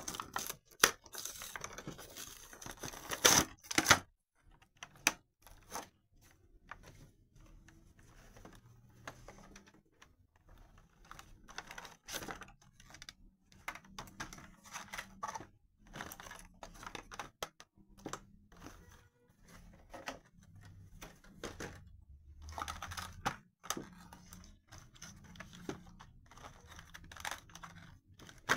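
Stiff clear plastic blister packaging being pried open and pulled apart by hand, with loud cracking and tearing in the first few seconds, then scattered crinkles and clicks as the plastic is handled.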